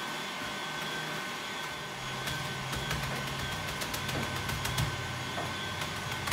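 Stand mixer motor running steadily, its wire whisk beating chilled heavy cream into whipped cream. From about two seconds in, sharp crackles sound over it: graham crackers being crushed by hand in a plastic bag.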